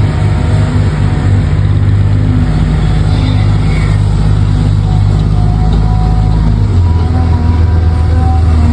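Steady low engine drone of a radio-controlled truck, dropping in pitch about seven seconds in.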